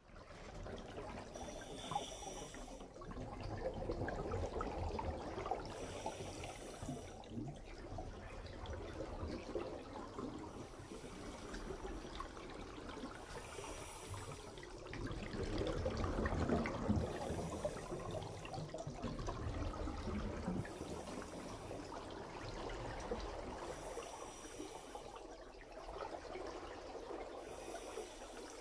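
Underwater scuba breathing through a regulator: a short hiss of inhalation every three to four seconds, with bubbling exhalations between. It fades in from silence at the start.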